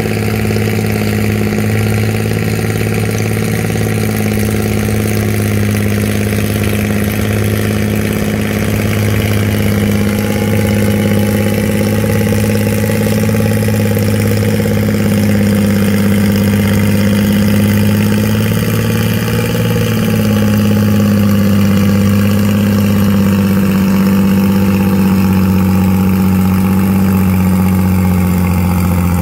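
Antique farm tractor engine running loudly at a steady speed, its pitch sagging slightly near the end.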